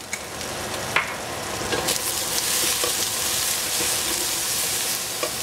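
Eggplant and zucchini pieces frying in oil in a stainless steel pot, sizzling steadily while being stirred, with a couple of sharp clicks of the utensil against the pot in the first two seconds.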